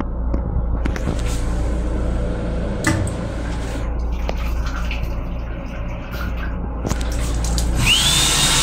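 Sensor faucet on a train restroom's combined dryer/faucet/soap unit running water into a small sink, over the steady low rumble of the moving rail car. Near the end the built-in hand dryer starts, a loud blowing hiss with a whine that rises in pitch and then holds.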